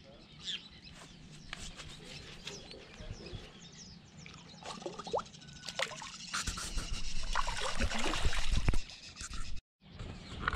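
Water splashing and sloshing as a redtail catfish is held in the lake and released, with small splashes at first and the loudest splashing from about six and a half seconds in. It stops abruptly shortly before the end.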